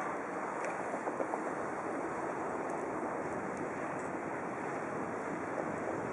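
Steady rushing traffic noise: a tram rolling past and cars driving over a snow-covered road, with a few faint ticks.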